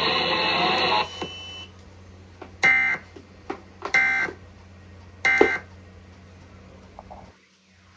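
Emergency Alert System end-of-message signal: three short, buzzy data bursts about 1.3 seconds apart, marking the end of the alert. Before them, about a second of loud hiss cuts off.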